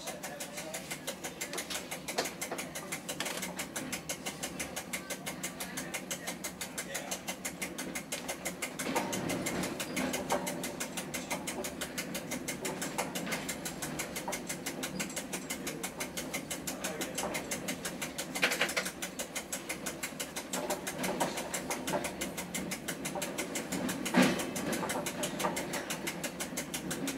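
A train running along the track, heard from inside the driver's cab. It makes a fast, steady mechanical rattle, with a few louder clunks, the loudest about three-quarters of the way through.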